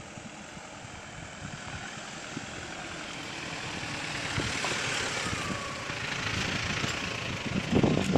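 Mahindra Xylo SUV's engine running as it climbs a dirt track, growing steadily louder as it approaches, with loud low rumbling near the end as it passes close by.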